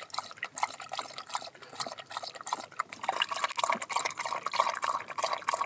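Border collie lapping water from a collapsible silicone travel bowl: a fast, irregular run of wet laps and small splashes.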